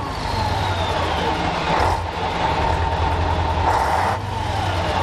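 1979 Scania 141's eight-cylinder diesel engine running close to its exhaust pipe, with a steady low engine note and a thin whine over it.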